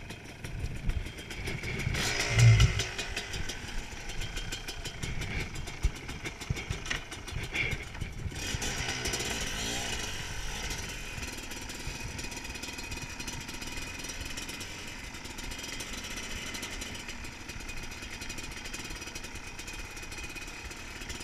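Trail motorbike engine running at low revs as the bike rolls slowly along a gravel track, heard close from the handlebars. There is a loud low thump about two and a half seconds in.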